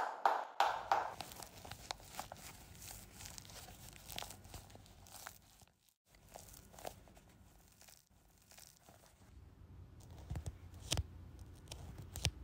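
Satin pointe shoes and their ribbons being handled: crinkling, rustling and small clicks, with a quick run of soft taps in the first second and a few low thumps near the end.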